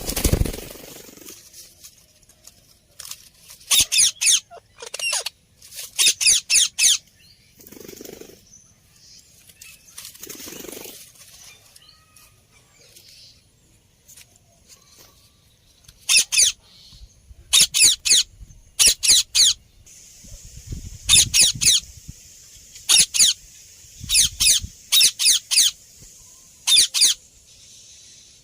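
Indian ringneck parakeet giving sharp, high-pitched calls in quick groups of two to four notes, repeated at irregular intervals. A low thump sounds at the very start.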